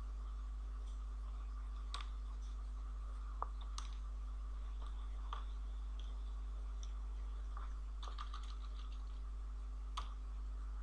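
Computer keyboard keystrokes, scattered single taps with a quick run of several about three-quarters of the way through, over a steady low electrical hum.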